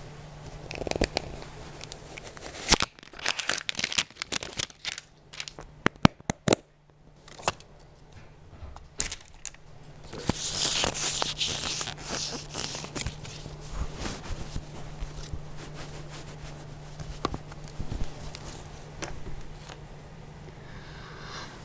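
Squishmallows blind-box packaging being opened close to the microphone: crinkling and tearing, with scattered sharp crackles and clicks, then a louder tearing rush about ten seconds in followed by steadier crinkling.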